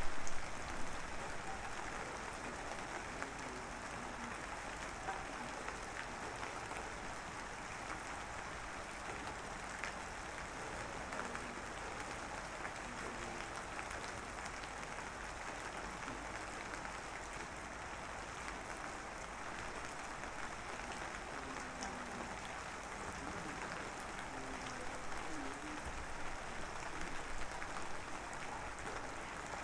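Light drizzling rain falling steadily, an even patter and hiss. There is a brief louder patch right at the start and slightly fuller patter near the end.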